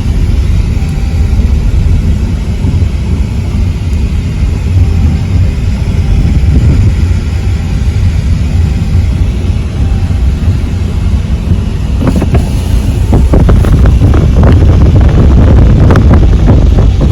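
Hurricane-force wind buffeting the microphone as a loud, steady low rumble. From about twelve seconds in, a rapid crackle of knocks and rattles joins it.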